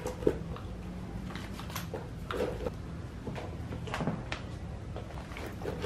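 A glossy handbag being handled and packed: a few light knocks, clicks and rustles. The sharpest comes about a third of a second in, with more around the middle and again at about four seconds.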